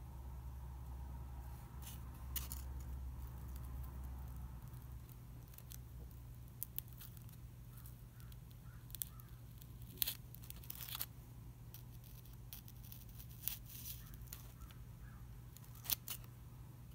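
Fingers handling a dried butterfly on a styrofoam board: faint, scattered clicks and scratches, the sharpest about ten seconds in and near the end, over a steady low hum.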